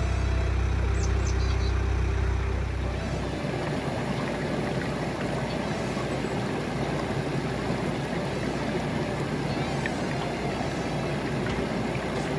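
Steady rushing noise, with a deep rumble underneath that drops away about three seconds in.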